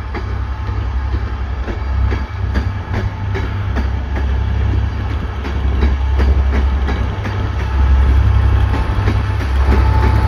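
Transport for Wales passenger train running past on the adjacent line, its wheels clicking over the rail joints about twice a second over a deep rumble, getting louder toward the end.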